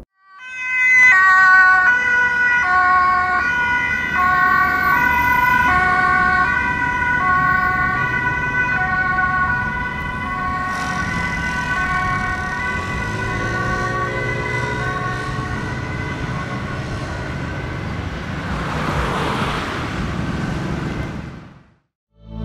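Dutch ambulance two-tone siren sounding on an urgent run, switching between a high and a low pitch about every two-thirds of a second, with road noise underneath; it cuts off suddenly near the end.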